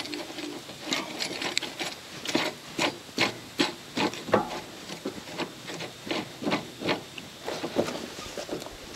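A bicycle pedal being threaded into the crank arm by hand: a run of light, irregular metal clicks and small scrapes, about two or three a second.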